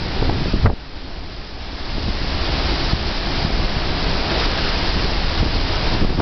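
Hurricane-force wind gusting with rain, buffeting the microphone in a loud, steady rush. It drops off sharply about a second in, then builds back up to full strength.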